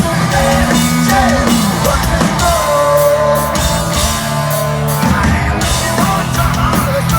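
Live rock band playing loud: drum kit, electric guitars and bass, with held and bending notes over a steady beat.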